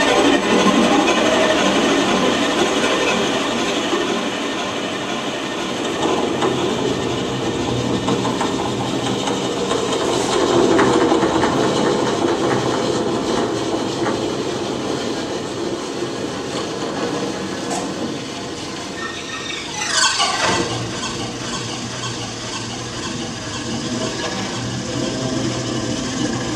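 Cello bowed live and run through computer effect layers, making a dense, noisy, continuous texture of processed cello sound, with a fast downward sweep about twenty seconds in.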